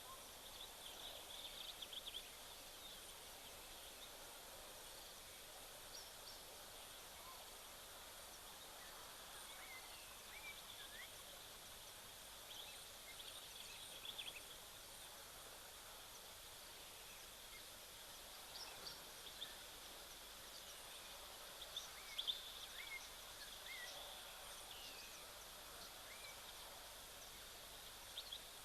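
Quiet outdoor ambience with a steady hiss and small birds chirping faintly in short clusters now and then, loudest about two thirds of the way through.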